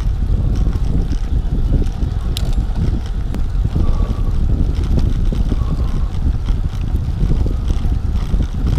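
Wind buffeting the microphone of a handlebar camera on a Trek 5500 carbon road bike riding at about 14 mph along a concrete path. It makes a steady low rumble, mixed with the roll of the tyres, and a couple of faint clicks.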